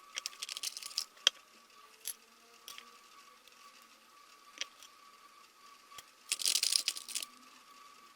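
Quick light metallic clicks and rattles from hand work on an opened lithium-ion vacuum-cleaner battery pack as its cells are being disconnected. There are two short flurries, one at the start and one about six seconds in, with a few single clicks between them and a faint steady whine underneath.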